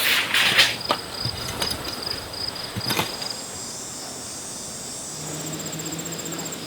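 Insects chirping in a steady, evenly pulsing high trill. A few loud rustles and knocks come in the first second or so, and a faint low hum joins about five seconds in.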